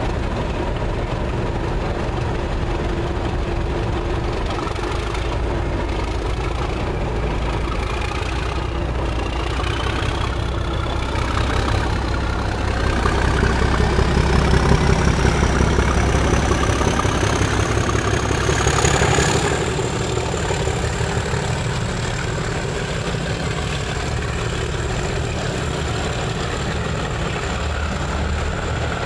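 Class 37 diesel locomotive, its English Electric turbocharged V12 working hard as it pulls away. A turbocharger whistle rises steadily in pitch over about ten seconds and then holds on one high note. The engine is loudest as the locomotive passes about halfway through, then eases back to a steady level as the coaches follow.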